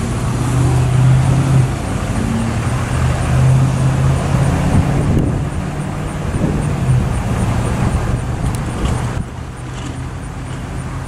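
Diesel locomotive engine of a slow-moving freight train running with a steady low hum. The hum eases a little near the end. A faint high ticking repeats about twice a second throughout.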